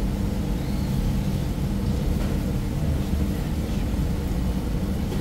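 Motor vehicle running steadily: a constant low rumble of engine and road noise.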